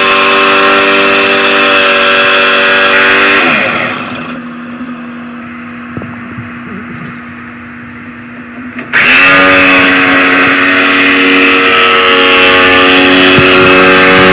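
DeWalt corded jigsaw running as it cuts through plywood, a loud whine with a rattle. About four seconds in it winds down, its pitch falling, leaving a much quieter even whir. About nine seconds in it is suddenly back at full speed, cutting again.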